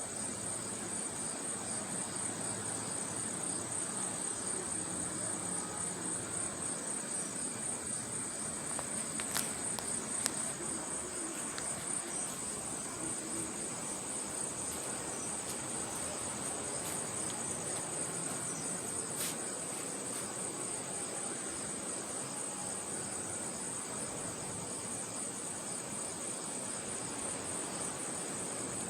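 Night insects trilling in a steady, high, finely pulsing chorus over a soft even hiss, with a few sharp clicks about a third of the way through and once more past the middle.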